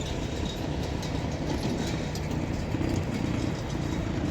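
Steady low rumble with faint scattered ticks, like the running of distant heavy machinery.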